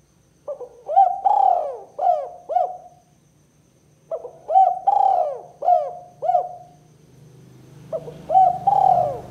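Spotted dove (tekukur) cooing: three phrases of several quick coos each, separated by pauses of about a second, the third still going at the end. A faint low hum runs underneath and grows louder during the last phrase.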